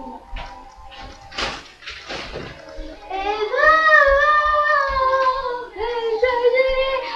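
A girl singing long, drawn-out notes that slide up and down in pitch, starting about three seconds in; before that only faint background with a couple of short rustling noises.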